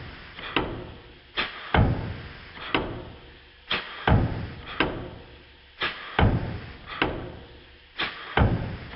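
Stuart Models beam engine running on compressed air, heard slowed down in slow motion: a repeating cycle of two or three heavy knocks about every two seconds, each followed by a fading hiss of exhaust air.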